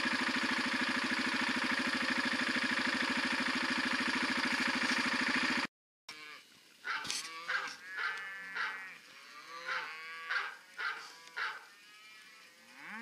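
An engine running steadily for the first half, cut off abruptly. Then a cell phone ringtone of a dog barking plays a run of short barks while beef cattle moo.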